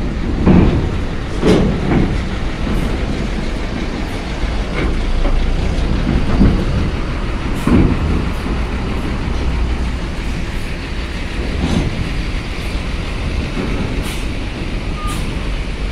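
Coach bus engine running with a steady low rumble as the bus rolls slowly up a ferry's steel loading ramp, with several irregular heavy clanks as its wheels cross the ramp's metal plates.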